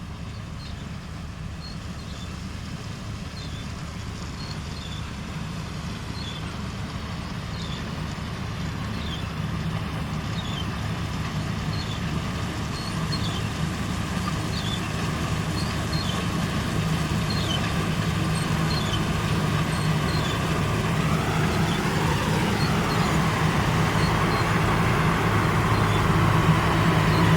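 New Holland CR960 combine harvester running steadily while cutting cereal, growing louder. About three quarters in, a whine briefly rises and falls in pitch over the engine.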